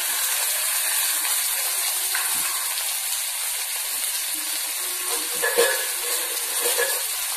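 Chopped onion and green chillies sizzling steadily in hot oil in a wok, freshly added to oil in which dried red chillies have browned. There is a brief knock a little past halfway.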